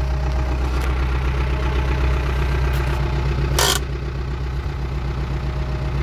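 Ford 6610 tractor's four-cylinder diesel engine running steadily, heard from inside the cab, with one short rasping noise about three and a half seconds in.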